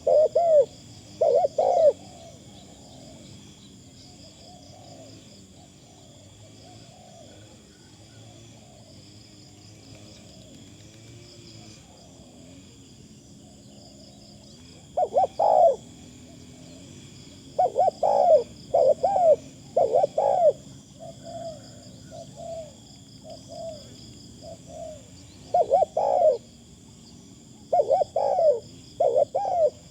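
Spotted dove cooing: short groups of low coos in repeated phrases, a few at the very start, then a long pause, then phrase after phrase through the second half.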